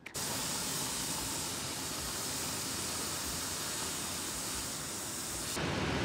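Steady rushing noise with no clear pitch, changing abruptly about five and a half seconds in to a lower, fuller noise.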